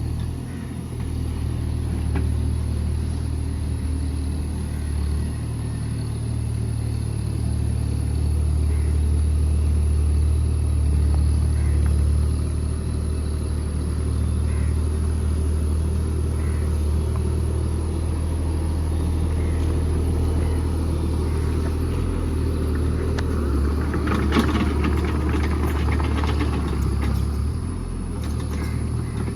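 JCB JS30 Plus mini excavator's diesel engine running steadily under working load. About four-fifths of the way through there is a brief, louder clatter.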